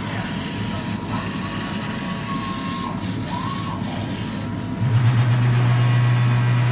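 Fabric laser cutter at work: steady machine noise with short motor whines rising and falling as the cutting head moves along its gantry. About five seconds in, a loud steady low hum starts and holds.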